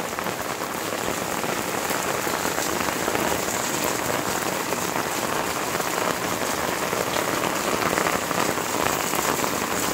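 Steady rain falling on wet paving and puddles, an even patter of many drops.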